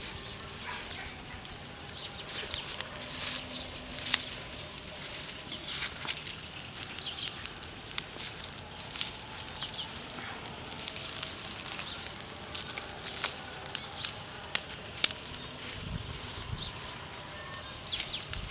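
Small open fire of dry leaves and twigs crackling, with irregular sharp pops over a steady hiss.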